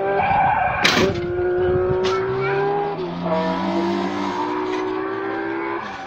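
Motor of a Euro Quad children's ride-on quad bike whining steadily as it drives, its pitch shifting about three seconds in. A sharp knock sounds about a second in, and a lighter one a second later.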